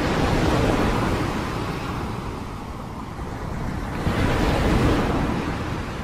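Storm waves breaking against a seawall, heavy surf rushing in two big surges about four seconds apart.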